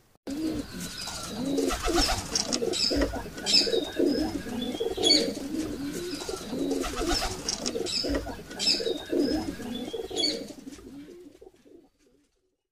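Pigeons cooing in repeated low calls, with small birds chirping high over them; fades out near the end.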